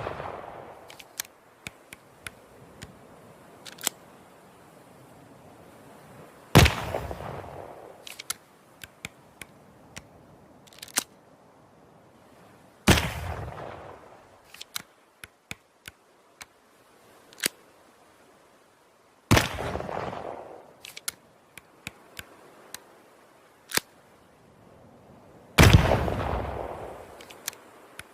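Flintlock pistol firing four single shots about six seconds apart, each cracking out and then ringing away over a couple of seconds. Small sharp clicks come between the shots.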